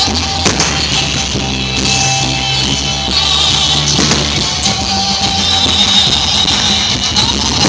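Loud rock music with electric guitar and singing, with a few sharp hits about half a second in and again near the middle.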